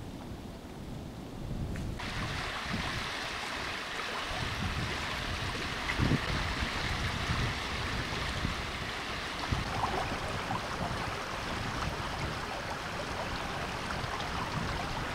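Water rushing steadily in a flooded river, with wind gusting on the microphone; the rush of water starts abruptly about two seconds in.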